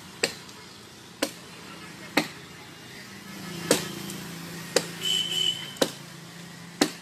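Sharp chopping blows on the wood of a fallen tree, about one a second, seven strikes, as branches are hacked apart. A low steady hum and faint voices sound under the blows in the middle stretch.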